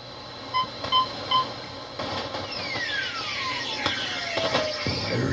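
Shortwave broadcast audio from a Collins R390 receiver: three short, evenly spaced beeps, then a long whistle sliding down in pitch over rising static hiss. A faint steady high tone runs underneath.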